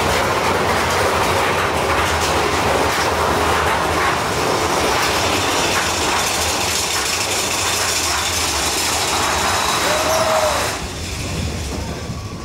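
Mine-train roller coaster cars running along their track, a loud steady rattle and rumble from the rider's seat. It eases off about eleven seconds in, as the train leaves the tunnel.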